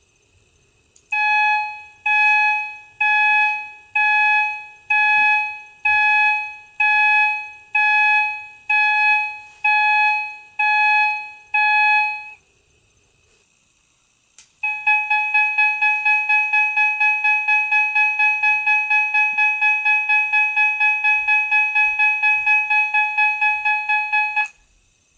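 System Sensor CH2415 fire alarm chime with a piezo sounder, sounding a low tone near its 800 Hz setting. It strikes about once a second, each stroke dying away, for about a dozen strokes. After a two-second pause it comes back as a fast pulse of about four a second, which stops just before the end.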